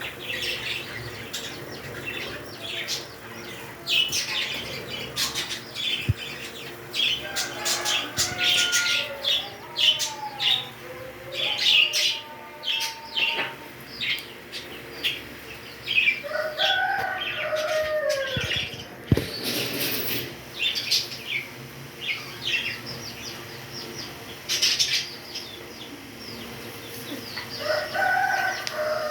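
Pet parrots chirping in quick, short, high calls throughout, with lower gliding whistled calls breaking in three times.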